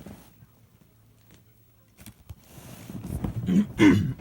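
A person coughing, with loud voice-like bursts near the end after a quiet stretch with a faint low hum and a click.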